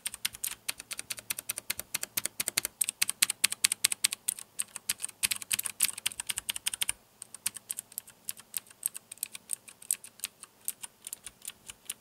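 Fast typing on a mechanical keyboard with Cherry MX Blue tactile click switches: a dense run of crisp, loud clicks as the keys are pressed and bottomed out, with a very short break about seven seconds in.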